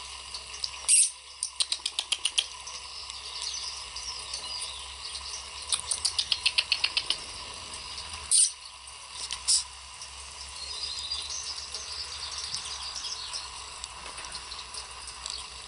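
Rhodesian Ridgeback puppies' claws clicking on wet stone patio tiles in two quick runs of about eight clicks a second, with a few sharper single knocks and faint high chirping in between.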